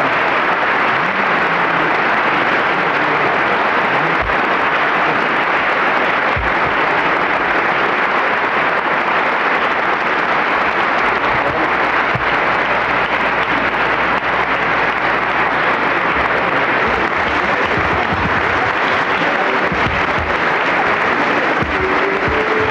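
A large audience clapping steadily, with sustained applause that does not let up.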